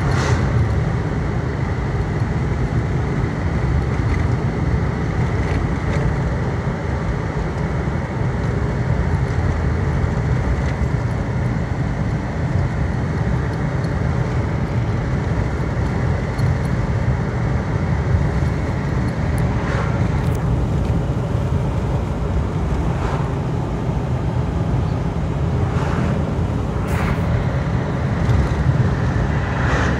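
Steady low rumble of a Jeep driving along a street, heard from inside the cab: engine and tyre noise at a constant cruising pace. A few light clicks come in the second half.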